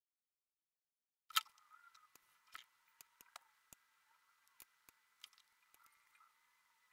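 After about a second of dead silence, a sharp click, then faint, irregular clicks and taps of painting tools being handled at a wooden drawing board, over a faint steady hiss with a thin high tone.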